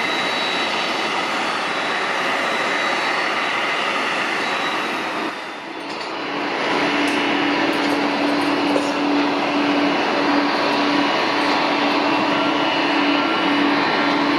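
Steady jet-engine noise of a Boeing 777-200 rolling out along the runway after landing. About five seconds in it gives way, after a brief dip, to the steady noise of a jet airliner on the apron with a constant low hum.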